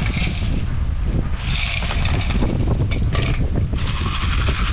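Wind buffeting the microphone: a loud, steady low rumble, with several bursts of rustling hiss over it.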